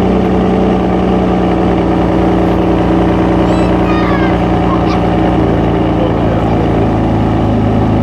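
Ferrari 599 GTB Fiorano's 6.0-litre V12 idling steadily, with no revving.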